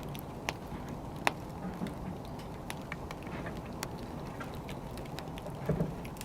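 Burning firewood crackling: scattered sharp pops and snaps over a low, steady rumble of the fire, with a loud crack about a second in and a small cluster of pops near the end.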